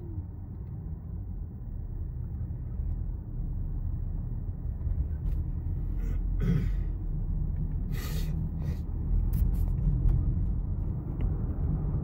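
Car interior road and engine noise while driving: a steady low rumble that grows gradually louder, with a couple of brief hissing sounds about six and eight seconds in.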